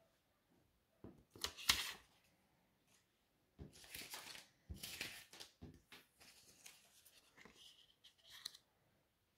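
Euro banknotes handled by hand on a table: crisp paper rustling and sliding in short bursts, loudest just under two seconds in, then a longer spell of rustling from about four to six seconds in and a few lighter rustles after.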